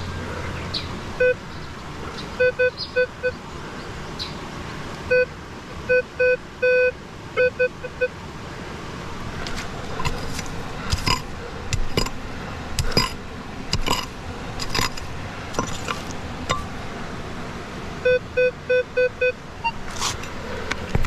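Metal detector sounding short, low beeps in quick bursts, signalling buried metal under the coil. In the middle a pick strikes the ground a number of times, digging, and then the detector beeps in bursts again.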